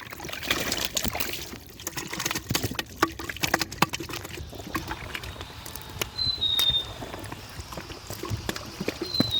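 Water splashing and trickling with scattered clicks and knocks, busiest in the first few seconds. A short high chirp that steps down in pitch sounds twice, about six and nine seconds in.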